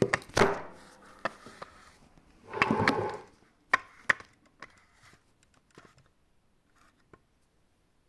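Sharp clicks and knocks from the metal linkage of a Textima industrial sewing machine's foot lifter latch being worked by hand, with a short rattling clatter about two and a half seconds in. The clicks thin out to a few faint ticks towards the end.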